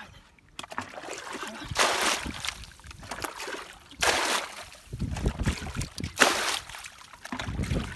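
Bucketfuls of muddy water being poured out of a plastic bucket, splashing down in several surges a second or two apart, as water is bailed out of a shallow muddy pool.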